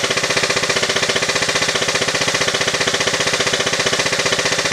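Airsoft HK416 rifle firing BBs in semi-auto, the audio sped up so the shots run together into a fast, even rattle with a buzzing hum under it.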